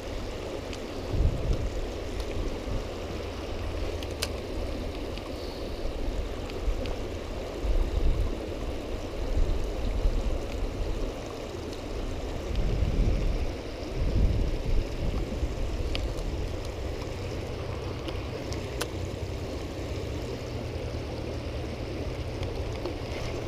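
Shallow river water running over the rocks of a low weir, a steady wash, with low gusts of wind rumbling on the microphone now and then.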